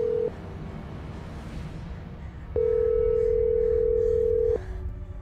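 Telephone ringback tone heard over a phone: steady beeps about two seconds long with a pause of about two seconds between them, while the call rings unanswered. One beep ends just after the start and another sounds about halfway through, over a low rumble.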